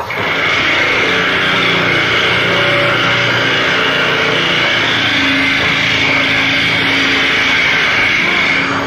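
Harsh noise music played live: a loud, dense, unbroken wall of amplified noise with a bright hissing band on top and faint low droning tones beneath. It starts abruptly and cuts off suddenly near the end.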